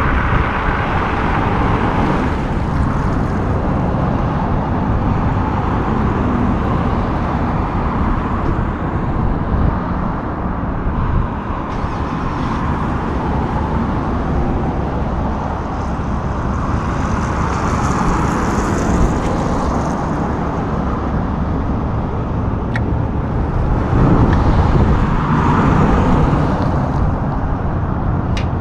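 Steady road-vehicle noise from traffic and a heavy truck's engine running, swelling louder near the end.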